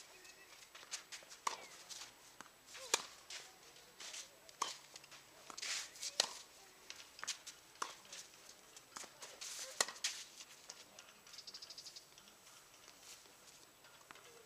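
Tennis rally: the ball is struck back and forth with racquets, sharp pops about every second and a half.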